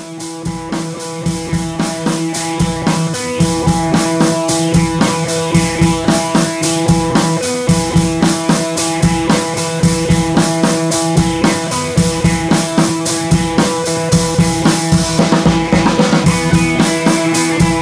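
Background music with a steady drum beat over held chords.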